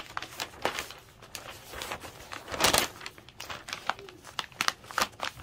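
Paper sewing pattern rustling and crinkling as it is folded into a pleat and pressed flat on a table by hand. There are many small rustles and a louder one about two and a half seconds in.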